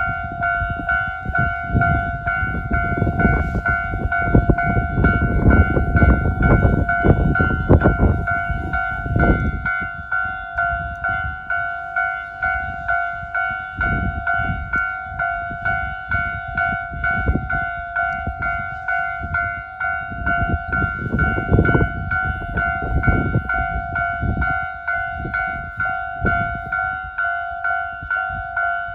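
Japanese railway level-crossing alarm sounding Tobu Railway's standard electronic warning tone, a pitched ding repeating steadily. For the first ten seconds or so a train passes with loud low running noise and rapid wheel clatter over the bell, which fades about nine seconds in.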